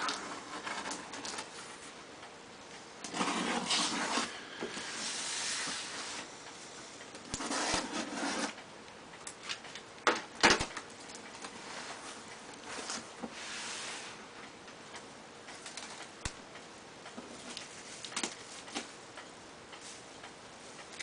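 A taped cardboard shipping box being opened by hand: irregular bursts of tape pulling and cardboard scraping, a couple of sharp knocks about halfway, and plastic sheeting rustling near the end.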